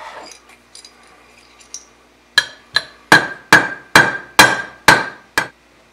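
Small non-marring hammer tapping a steel roll pin into an AR-15 upper receiver to start it in the forward assist: eight light, evenly paced taps, about two a second, each with a short metallic ring. Before the taps there are a few faint clicks as the pin is set in place.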